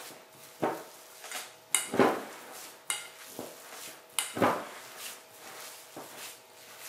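Hands kneading a crumbly dough of crushed dry biscuits, cocoa and margarine in a bowl: irregular knocks and clinks of the bowl being worked, with a few sharp clicks.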